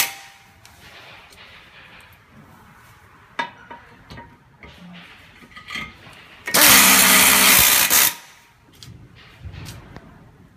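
Pneumatic screwdriver running once for about a second and a half with a loud hissing sound, driving a screw up into the chair's armrest frame. A few light clicks of handling and screws come before it.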